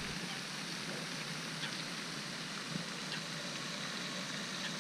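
Steady outdoor background hiss with a few faint ticks.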